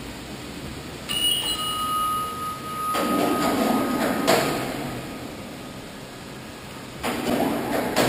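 Metal scraping and clanking from steel ship-cooler plates being handled, with a short ringing metallic tone about a second in. Two rougher scraping stretches follow, one a few seconds in ending in a sharp clack and another near the end.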